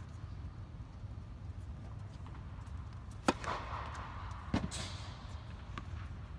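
Tennis serve: a racket strikes the ball with one sharp crack about three seconds in, ringing on in the echoing indoor court. A second, duller thud follows a little over a second later, over a steady low hum.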